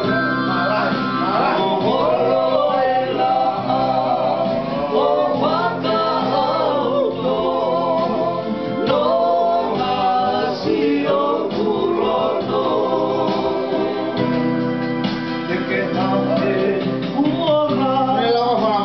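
Men singing a song together, accompanied by a strummed acoustic guitar and an electronic keyboard.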